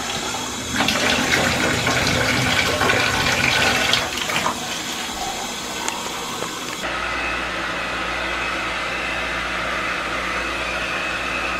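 Water running and splashing in a bathtub while a wet dog is bathed. About seven seconds in, it cuts abruptly to a handheld hair dryer blowing steadily, a low hum with a constant whine.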